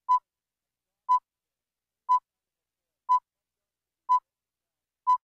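Six short, identical beeps, one each second: the countdown tone of a broadcast slate counting down to the start of a programme.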